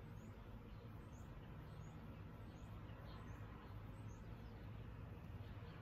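Quiet room tone: a steady low hum with faint, short high chirps repeating roughly every half second.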